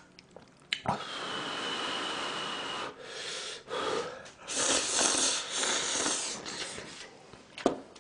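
A person slurping hot ramyeon noodles: one long slurp about a second in, then several shorter ones.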